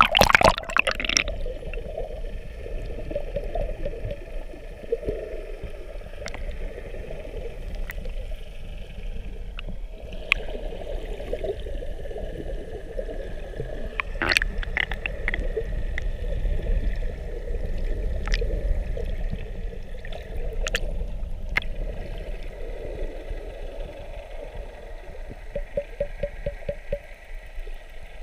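Sea water splashing as the camera goes under at the surface, then muffled underwater ambience: a steady low rumble with a wavering hum and scattered sharp clicks.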